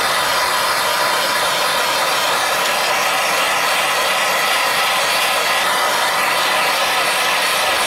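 Gas torch burning with a loud, steady hiss as its flame heats the outboard's lower-unit gearcase housing, to loosen a stuck part held in a puller.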